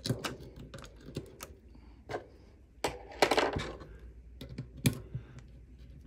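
Irregular small clicks and taps of fingers handling small screws and the aluminium vat frame while a new FEP film is pulled taut, with a brief louder rustle a little after three seconds in.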